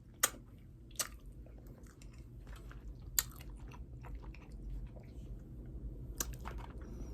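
Close-up chewing of saucy hot wings, with a few sharp wet mouth smacks.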